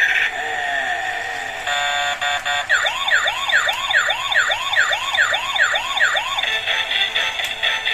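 Electronic siren-like wail: a clean rising-and-falling tone repeating about twice a second for some four seconds in the middle, with steady synthetic tones before and after it.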